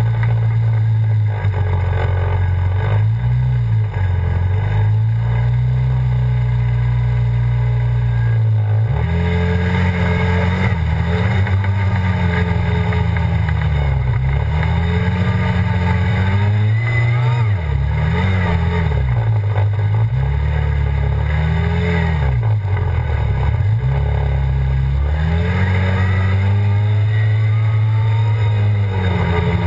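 ATV engine running close to the microphone. It holds a steady pitch for the first several seconds, then from about nine seconds in rises and falls over and over as the throttle is opened and closed.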